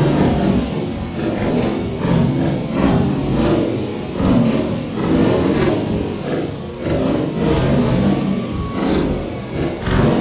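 Fireworks bursts slowed down into deep, rolling rumbles, one swelling after another about every second.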